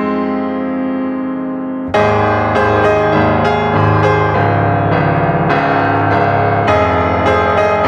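Background piano music: a held chord fades for about two seconds, then a new phrase of notes starts.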